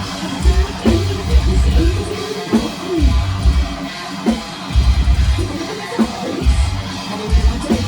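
Loud live metalcore band music: electric guitar over drum kit, with heavy low bass and kick-drum hits coming in short groups about once a second.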